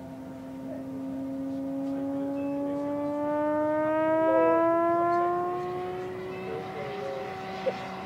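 The huge 20-inch propeller of an electric AT-6 Texan scale model, driven by an Axi brushless motor, makes a steady pitched hum in flight. It climbs gradually in pitch and grows louder to a peak about halfway through, then eases off a little.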